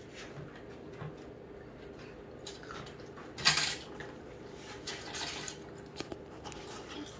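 Tabletop kettle popcorn machine running with a steady hum, the last kernels popping in scattered light pops and clinks as popping finishes. A brief louder rattle about halfway through.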